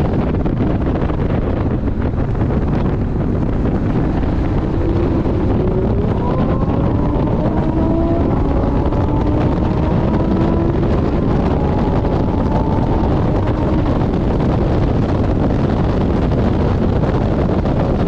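Heavy wind buffeting on the microphone over the running engine of a Porsche 718 Boxster GTS at speed. About five seconds in, the engine note rises slowly for several seconds as the car accelerates, then levels off and sinks back under the wind noise.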